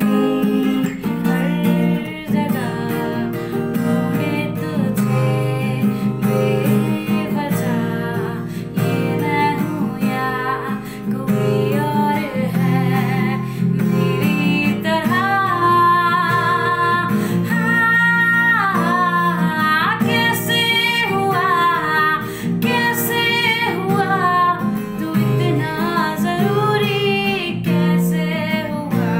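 A woman singing a Hindi song solo, accompanying herself by strumming an acoustic guitar.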